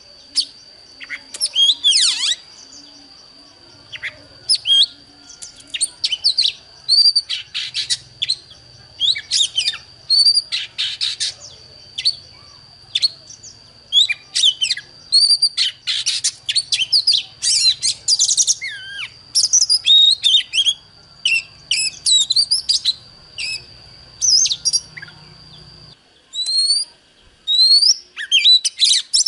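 Oriental magpie-robin singing: rapid, varied whistles, chirps and sweeping notes in quick phrases with short pauses. A steady high tone runs beneath the song and stops near the end.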